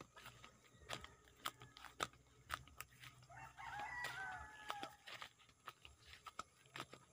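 A rooster crows once, faint and far off, about three seconds in, one wavering call lasting about a second and a half. Under it, soft footsteps on a dirt path tick about twice a second.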